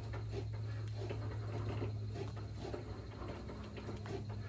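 Hands smoothing and pressing a clear plastic transfer sheet flat onto shirt fabric, making soft scratchy rustling and light pats, over a steady low hum.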